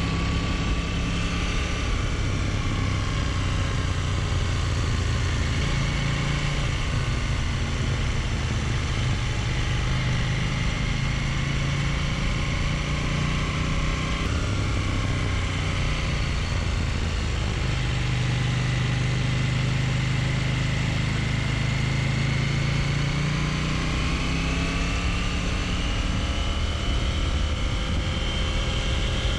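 Motorcycle engine running at road speed, heard from on the bike with constant wind rush; its pitch rises and falls slowly with the throttle, and the sound changes abruptly about halfway through.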